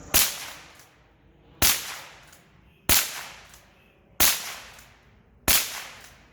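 Gunshots fired one after another at a steady pace: five sharp reports about a second and a quarter apart, each followed by a short echo.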